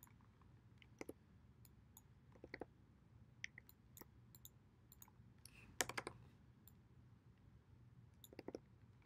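Faint, scattered clicks from a computer mouse and keyboard, a few at a time, with the loudest a quick cluster about six seconds in.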